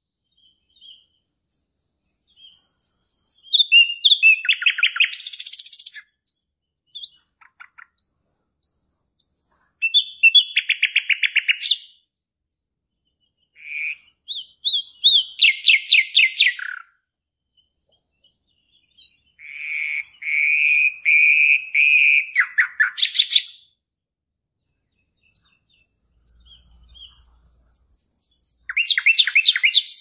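Caged small grey songbird singing in about five bouts of rapid trilling phrases, with thin high whistled notes between them and short pauses between bouts.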